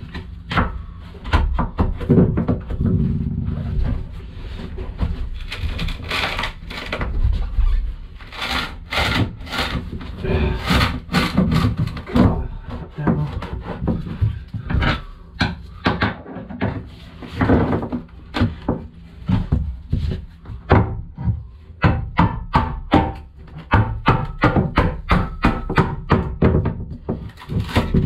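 Hammer striking a chisel into fiberglass: many sharp knocks, irregular at first and about two a second near the end, over background music.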